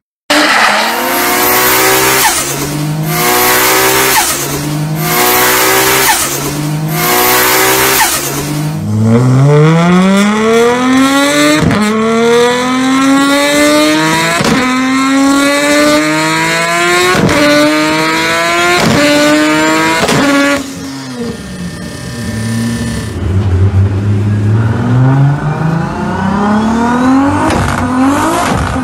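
Modified Toyota Supra (A80) straight-six engines run hard on a chassis dyno. Quick rev bursts come first, then a long wide-open pull through the gears, the pitch climbing in each gear and dropping sharply at four shifts before the engine coasts down. Near the end a second Supra starts a pull, its pitch rising again.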